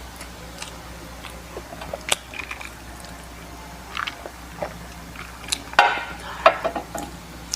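Close-up eating sounds: a person biting and chewing food, heard as scattered short clicks and brief crisp bursts, the loudest cluster about six seconds in.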